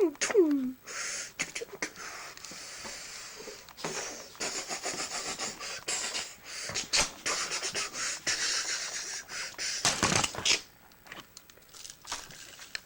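A child making gunfire and blast noises with the mouth: a rapid string of short hissing, spitting bursts that stops about ten and a half seconds in.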